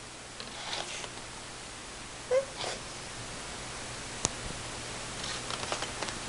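Short scratchy rasps of a nail file being drawn, a few strokes near the start and a quick run of them near the end. A brief squeak about two seconds in is the loudest sound, and a sharp click comes a little after four seconds.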